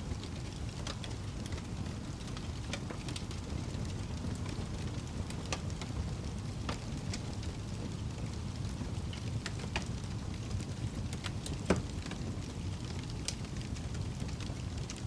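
Wood fire burning in a fireplace: a steady low rumble with scattered sharp crackles and pops, one louder pop about twelve seconds in.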